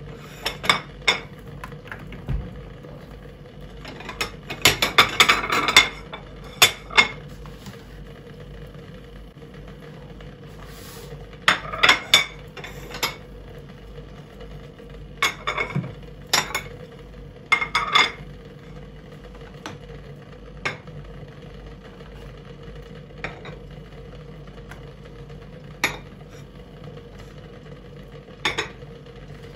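Kitchen dishes and cutlery clinking and knocking at irregular intervals, with a denser clatter about five seconds in, over a steady low hum.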